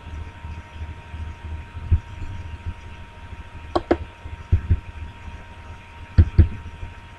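Computer mouse clicks, two quick pairs of sharp clicks about two seconds apart, with a few duller low thumps, over a steady low electrical hum.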